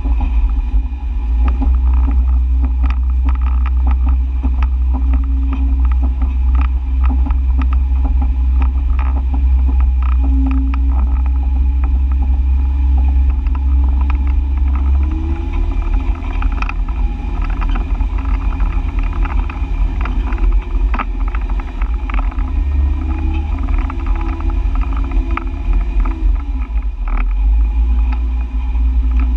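Lifted off-road vehicle's engine running at low speed as it crawls up a rocky dirt trail, a deep steady rumble with frequent short knocks and rattles as it rolls over rocks. About halfway through the engine note changes and rises and falls.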